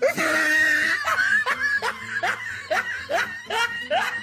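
A person snickering: a held laugh at the start, then a run of short rising snickers, about three a second.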